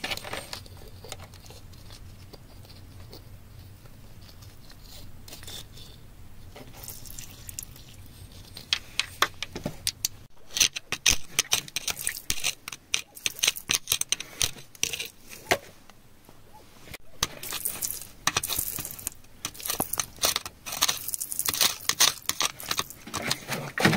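Metal digging tool scraping and tapping through wet, gravelly soil and stones: fairly quiet at first, then from about eight seconds in a dense run of quick clicks, scrapes and crunches.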